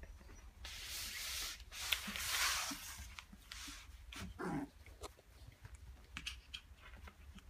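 Husky puppies tussling on a blanket: fabric and fur rustling, loudest for about two seconds near the start. About four and a half seconds in there is a brief low puppy sound, followed by a few small scuffs and clicks.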